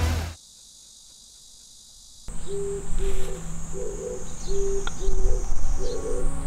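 Background music cuts off just after the start, leaving faint hiss. About two seconds in, a steady high insect drone begins, and a short low hooting call repeats about twice a second over it.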